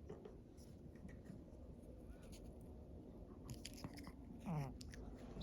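Faint chewing and gnawing with small crunches, a dog working at something in its mouth. About four and a half seconds in there is a short pitched sound that slides up and down.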